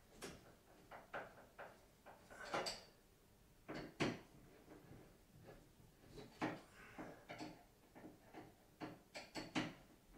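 Faint, irregular clicks and scrapes of a flush-mount ceiling light fixture's metal pan and mounting screws being tightened by hand against the ceiling.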